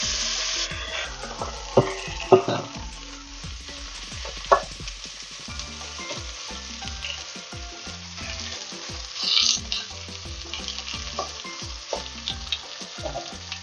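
Boneless chicken thigh pieces sizzling in smoking-hot olive oil in a pot, loudest for the first moment after they go in, then settling to a steady sizzle. A few sharp knocks and scrapes of a utensil against the pot as the pieces are spread out for browning.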